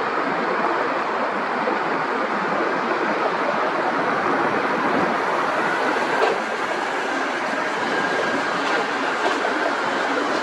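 Jet airliner engine noise: a steady roar, with a faint high whine coming in about halfway through.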